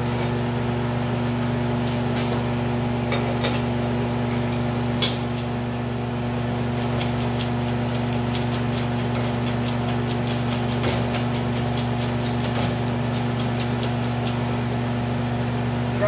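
A steady low mechanical hum runs throughout, with scattered light metal clicks and ticks from a hydraulic bottle-jack press being worked to press a sleeve onto a bushing. There is a sharper click about five seconds in, and the ticks come more often in the second half.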